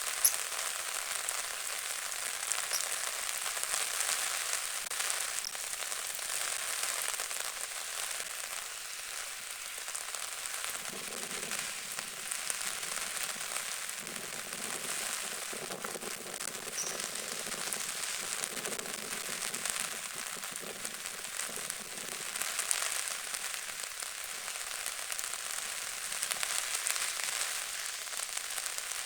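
Steady rain pattering and crackling on a lake surface. A lower, uneven sound comes and goes through the middle, and there is one sharp click at the very start.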